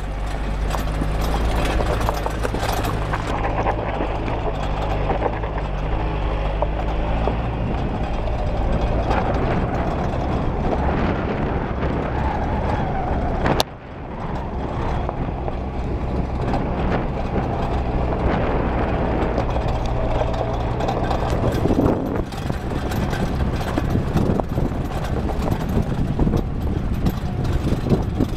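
4x4 jeep's engine running under load as it climbs a rough, stony dirt track, its pitch stepping up and down, with tyres crunching over gravel and the vehicle jolting and rattling. A sharp click with a brief dip in the sound about halfway through.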